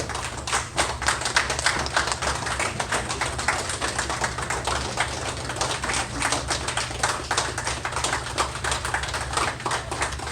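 A small audience applauding, with many separate hand claps heard distinctly, over a low steady hum.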